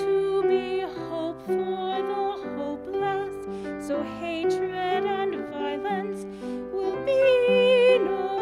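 A woman singing a hymn with vibrato over a steady instrumental accompaniment, holding a long note near the end.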